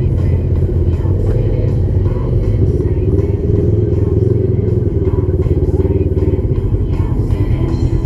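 A side-by-side UTV engine running steadily, with music playing over it.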